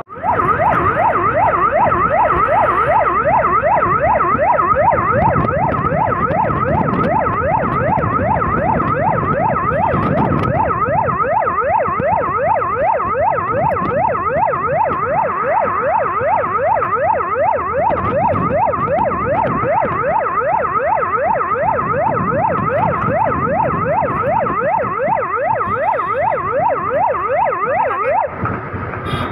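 Fire-service vehicle's roof-mounted siren sounding a fast yelp, its pitch sweeping up and down several times a second, over the vehicle's engine and road noise. The siren cuts off near the end.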